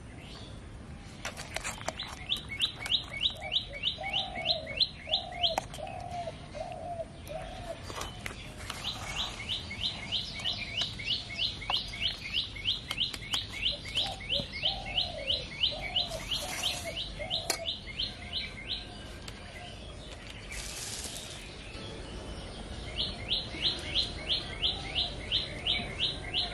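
Birds calling: one sings fast runs of high, sharp repeated notes, about five a second, in three long series. Under it a lower, rounder call repeats in two shorter bouts.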